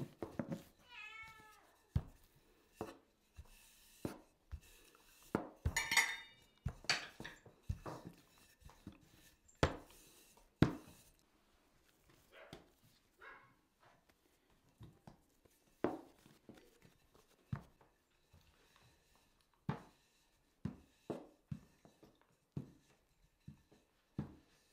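Irregular knocks, taps and clicks of hand work with a wooden rolling pin on a wooden board and a spoon on a plate, a few of them sharp and loud. A brief high wavering call sounds in the first second or so.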